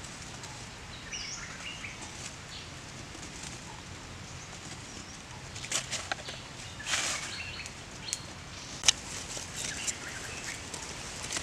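Quiet forest background with a few bird chirps about a second in. From the middle on come short scrapes and sharp clicks as a stick pokes and knocks at the campfire's ashes and embers, the loudest a single sharp click near the end.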